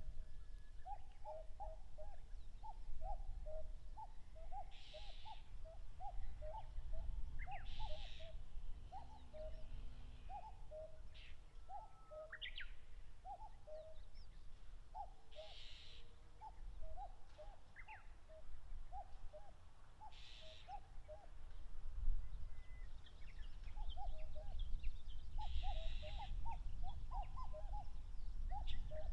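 Common cuckoos giving their two-note "cuck-oo" calls over and over, the calls coming faster than one bird would give them, as rival males call against each other in a territorial dispute. Higher chirps from other small birds come in between.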